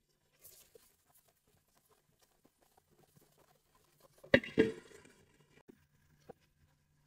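A glass lid clatters down onto a tawa twice, about four seconds in, with a short ring after. Under it, the faint crackle of okra frying in oil.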